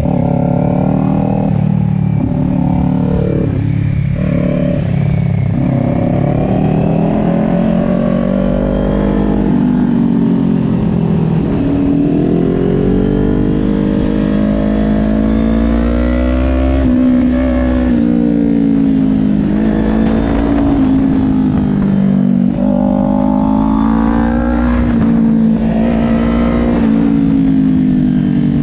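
2020 Kawasaki Ninja 400's parallel-twin engine heard onboard while riding a track, its revs rising and falling again and again as the throttle is opened and closed through the corners.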